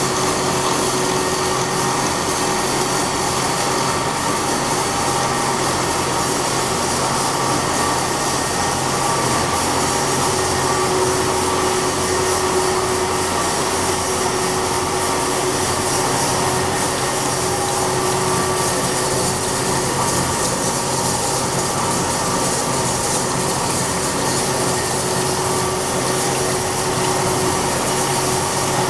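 Wedge wire (Johnson) screen welding machine running: a steady mechanical hum with a few held tones over an even hiss, unchanging throughout.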